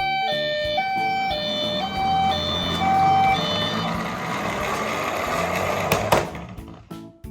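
Toy ambulance's electronic two-tone siren alternating high and low about every half second, over the rolling rattle of toy cars running down a track slide. The siren stops about halfway; the rolling goes on for a few more seconds and ends with a couple of sharp knocks.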